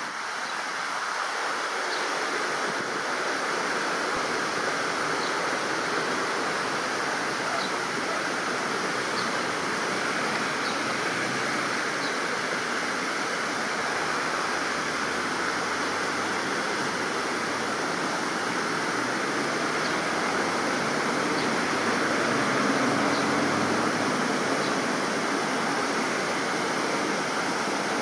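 Steady rushing noise, like running water, throughout. Faint, short, high chirps come every second or two over it.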